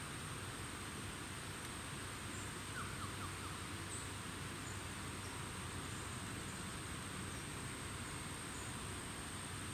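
Insects trilling in one steady high-pitched note over the hiss of open outdoor air, with a few faint short chirps about three seconds in.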